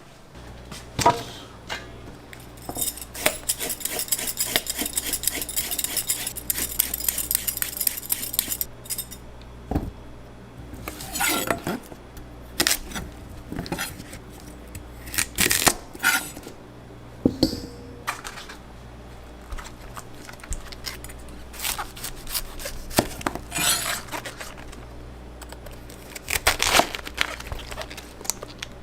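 Metal cooking utensils and dishes clinking and knocking while food is prepared. About three seconds in there is a stretch of fast rattling that lasts some five seconds, over a steady low hum.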